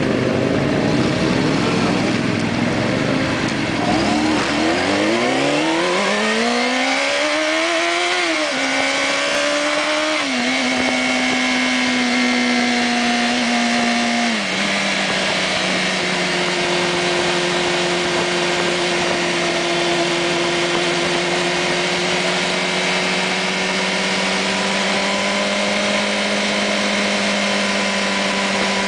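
Sport motorcycle engine heard from on board, pulling hard and climbing in pitch, then upshifting three times, each shift dropping the pitch. From about halfway through it holds a steady cruise.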